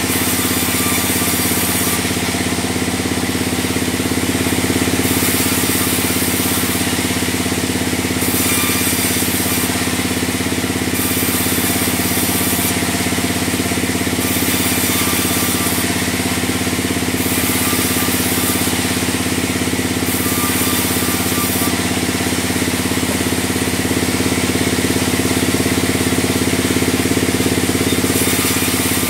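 Large log band sawmill running steadily, its drive giving a constant low drone while the blade saws timber; a high hiss comes and goes every second or two.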